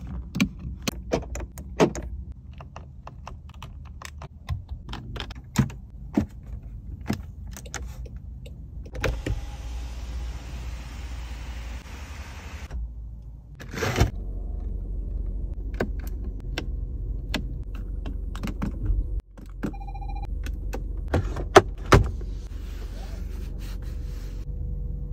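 Jaguar car interior controls being worked: a string of switch clicks from the door's window controls, then an electric motor running for about four seconds as the panoramic roof's sunblind opens. Later a short electronic chime, followed by two loud clicks from the centre armrest lid, over a low steady hum.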